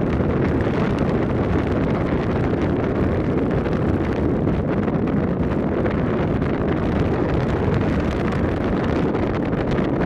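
Strong wind buffeting the microphone: a steady low rumble with no breaks.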